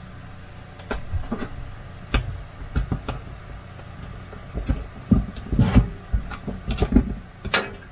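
Irregular taps, knocks and rubbing of a hand pressing a peel-and-stick stainless steel mosaic tile sheet onto the wall. They are sparse at first and come thicker and louder in the second half.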